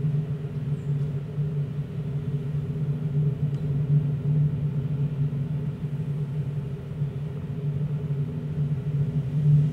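A steady low droning hum with several held pitches layered over each other, running without a break.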